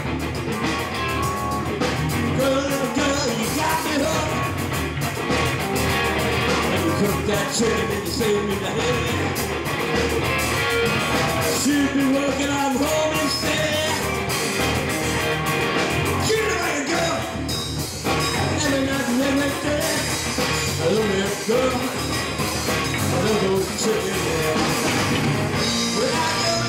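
Live rock and roll band playing: electric guitar, electric bass and drum kit.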